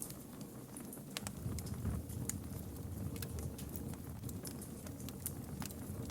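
Campfire burning with irregular sharp crackles and pops over a low, steady rumble of flame.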